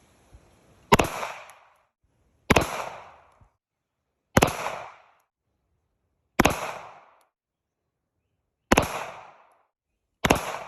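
Six single shots from a .45 caliber gun, fired one at a time about one and a half to two seconds apart, each sharp crack trailing off over about half a second.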